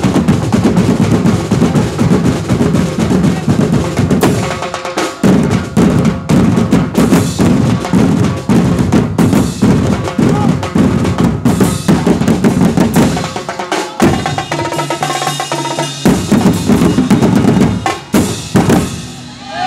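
Percussion ensemble playing loudly on big bass drums, tall hand drums and struck metal drums to a fast, driving beat. The low drums drop out briefly about five seconds in and again for a couple of seconds about two-thirds through, leaving lighter hits and ringing metal tones.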